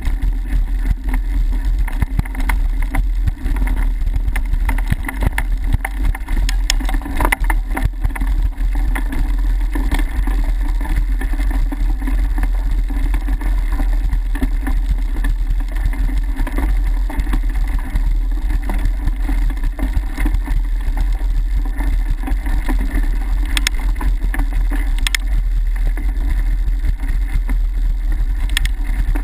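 Mountain bike rolling fast over a dirt trail: a steady heavy rumble of tyres and frame with constant rattling, a cluster of sharper clicks about a quarter of the way in, and a few more sharp ticks near the end.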